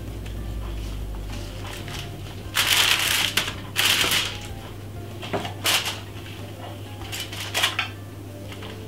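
Baking parchment and the aluminium foil under it crinkling as they are handled: a few loud rustling crackles, the biggest about three and four seconds in, with smaller ones later.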